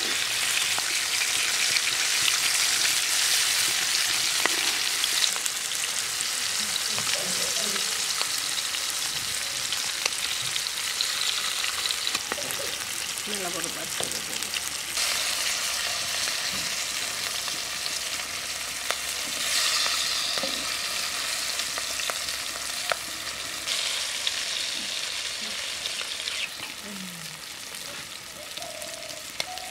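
Hilsa fish steaks frying in hot oil in an iron pan: a steady sizzle with frequent small pops and crackles.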